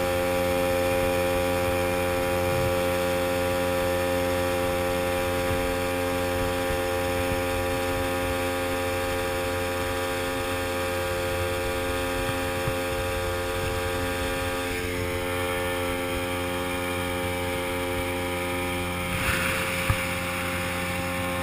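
Outboard motor running steadily at speed, driving a small aluminium boat across the water: a constant hum with a strong whining tone. A few knocks near the end.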